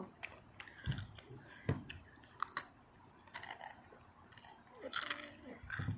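Close-up crunching and chewing of Takis rolled tortilla chips: scattered sharp crunches, the loudest about two and a half seconds in, with a few dull thumps.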